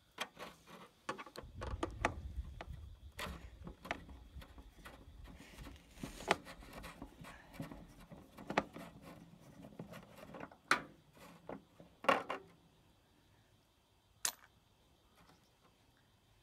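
Irregular knocks, clicks and scrapes of a plastic five-gallon water-cooler jug and its PVC pipe being gripped and worked loose by hand, with a low rumble about two seconds in and one sharp click near the end.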